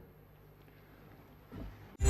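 Near silence: faint room tone with a low hum, and a brief faint low sound about one and a half seconds in.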